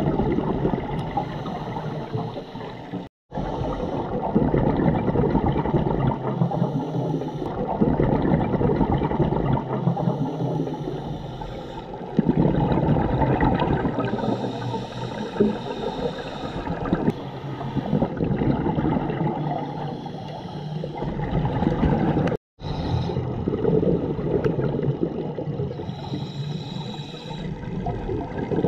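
Underwater camera audio of a scuba diver breathing through a regulator, with the rush and gurgle of exhaled bubbles swelling and easing in slow cycles every few seconds. The sound cuts out briefly twice.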